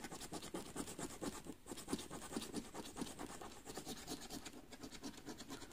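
A coin scratching the silver coating off a paper scratch card in quick, repeated back-and-forth strokes, uncovering the numbers beneath.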